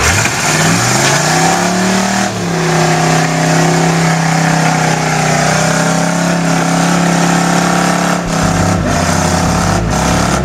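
Lifted square-body GMC pickup's engine revving up over about two seconds and held at steady high revs as the truck churns through deep mud, then easing off about eight seconds in.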